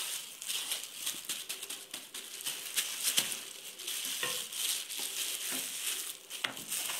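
Disposable plastic gloves crinkling as hands press a ball of dough flat and roll it out with a wooden rolling pin on a plastic cutting board: a dense run of small crackles and light taps.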